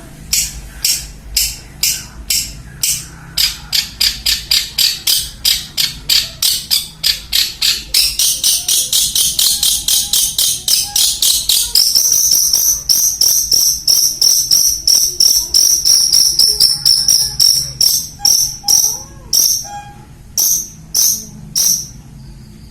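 Juvenile long-tailed shrike giving a long run of harsh, rasping notes, a few a second at first, quickening to a rapid chatter with a thin whistled edge, then slowing again near the end: a young bird practising its call.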